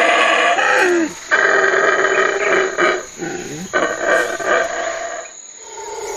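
Howler monkey howling: loud, long, rasping roars broken by short gaps, fading out near the end.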